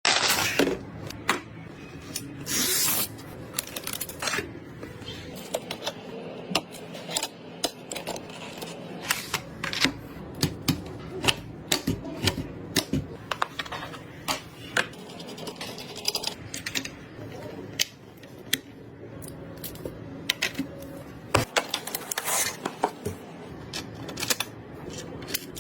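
Computer parts being handled and fitted during a PC build: irregular small clicks, taps and knocks of plastic and metal components, with a short rustle about three seconds in, over a steady low hum.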